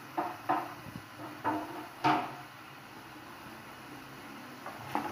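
A spoon scraping and knocking against a cooking pot while the chopped turnips and potatoes are stirred: several short scrapes in the first two seconds, a pause, then more near the end.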